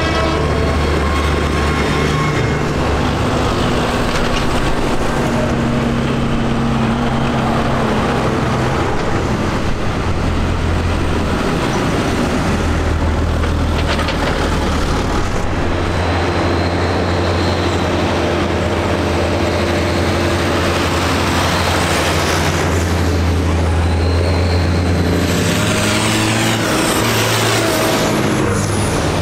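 Diesel engines of farm tractors running as a line of them drives past one after another: a steady, loud low drone whose engine note changes as each tractor comes by.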